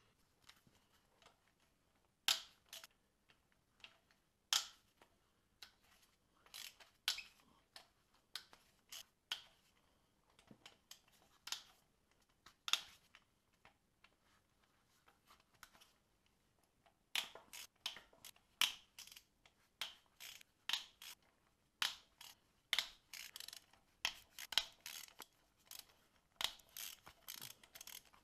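Hand ratchet clicking in short runs and metal tools clinking as bolts are undone on an engine. The clicks come scattered at first and come thicker in the second half.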